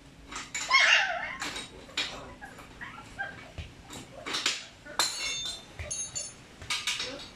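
Hand tools clicking and clinking against metal on a motorcycle engine as its bolts are worked, some knocks ringing briefly. About a second in there is a louder, short animal cry.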